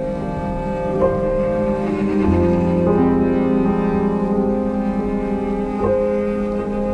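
Slow instrumental background music, sustained notes changing every second or two.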